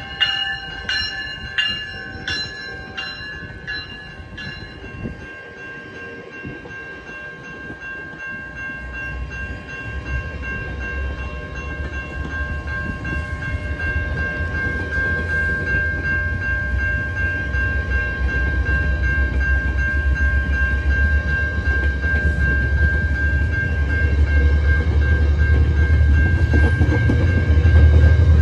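GO Transit bilevel commuter coaches rolling past, with a bell ringing about twice a second for the first few seconds and a steady high whine over the passing train. A low diesel rumble from the two pushing EMD F59PH locomotives builds steadily and is loud near the end as they approach.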